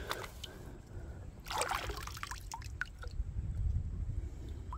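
Creek water sloshing and splashing around a person wading into deeper water, with a short flurry of splashing about a second and a half in.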